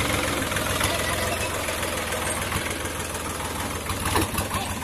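Farm tractor's diesel engine running steadily under load as it pulls a trolley heaped with sugarcane through soft, rutted ground, with a short clatter about four seconds in.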